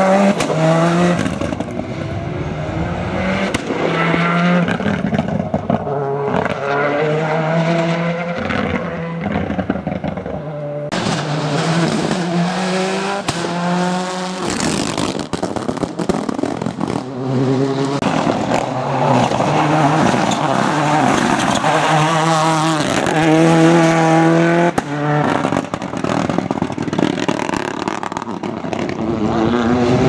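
Ford Escort rally cars with turbocharged Cosworth four-cylinder engines, accelerating hard uphill. The revs climb and drop through repeated gear changes, over several passes joined by sudden cuts.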